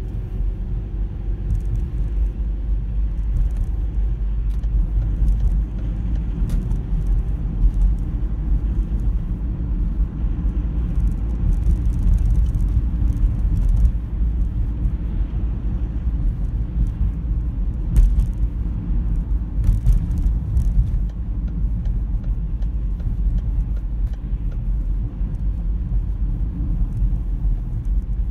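Steady low rumble of a car's engine and tyres on the road, heard from inside the moving car, with scattered light clicks and knocks; the sharpest knock comes about two-thirds of the way through.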